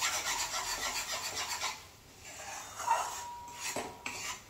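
Metal spatula scraping round a steel kadai, stirring a roasting butter-and-flour roux: rapid continuous scrapes for the first second and a half, then quieter, with a few more scrapes near the end. The steady stirring keeps the flour from forming lumps as it cooks.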